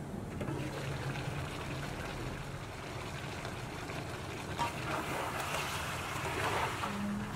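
Chicken simmering and sizzling in its juices in a stainless steel pan: a steady hiss over a low hum, growing louder and brighter in the second half as a spatula stirs the pieces in the uncovered pan.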